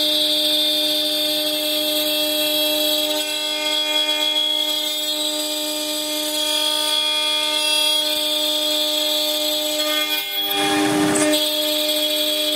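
CNC router spindle with an end mill cutting a 25 mm aluminium block: a steady, pitched, horn-like whine of the cutter in the metal. A brief rushing noise cuts in about ten seconds in.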